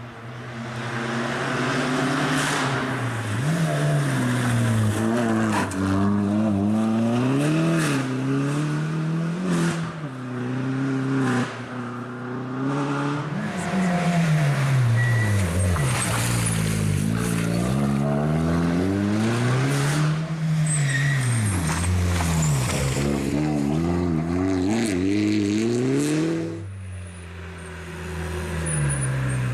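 Opel Corsa OPC rally car's turbocharged engine driven hard, its pitch repeatedly climbing under acceleration and dropping at gear changes and lifts. Near the end it drops away briefly, then climbs again.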